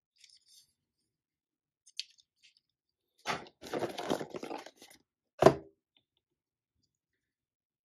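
Cardboard toy packaging being handled, crinkling and rustling for about a second and a half, then a single sharp knock against the wooden tabletop, the loudest sound. Faint plastic clicks come earlier.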